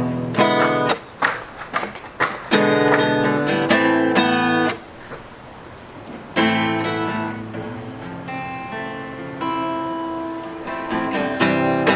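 Instrumental guitar intro to an indie song. Strummed chords come in short, choppy strokes, then drop away about five seconds in. After that, chords are left to ring out, and the strumming picks up again near the end.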